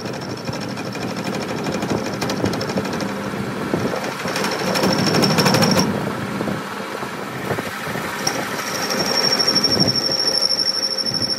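Workshop power tool running with a fast rattling pulse and a steady high whine, growing louder about halfway through and again near the end.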